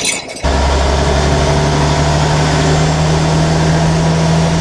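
Ward LaFrance fire truck's engine running at a steady pace, heard inside the cab as a loud, even low drone with a hiss over it. It sets in abruptly about half a second in.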